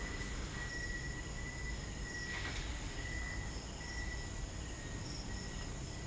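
Crickets trilling continuously, several high-pitched pulsing chirps overlapping, over a low background rumble.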